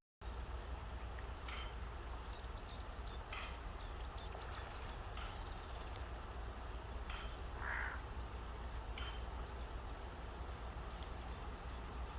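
Small birds chirping in short, separate notes every second or two, with a quick run of high little notes a few seconds in. One louder, harsher call comes just before eight seconds, all over a steady low rumble.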